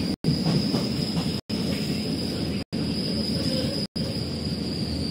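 DEMU passenger train running along the line: a steady low rumble of the moving carriage with a thin, steady high-pitched whine above it. The sound cuts out for an instant about every second and a quarter.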